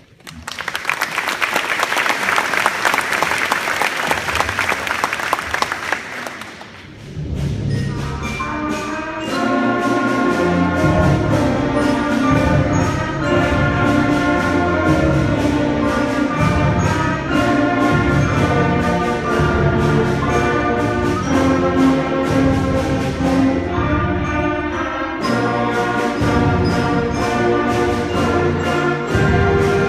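Audience applause for about six seconds, then a sixth-grade concert band of brass and woodwinds starts playing, with percussion strokes keeping the beat.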